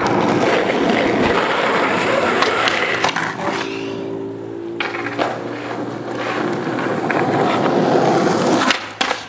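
Skateboard wheels rolling over rough asphalt: a continuous gritty roll, softening for about a second around the middle, with a few sharp clacks near the end.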